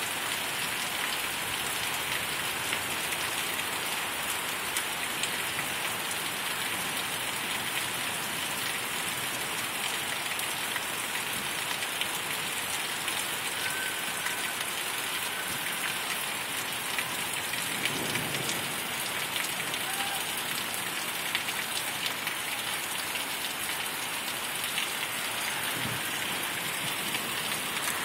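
Steady rain falling on a flooded street and lawn, with many individual drops splashing close by.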